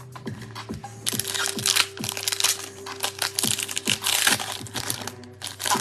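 Foil wrapper of a Panini Prizm football card pack crinkling and crackling as it is torn open by hand, starting about a second in, over background music.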